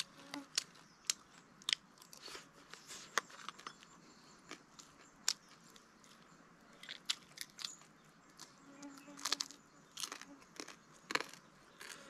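Someone biting and chewing crunchy food, with sharp, irregular crunches.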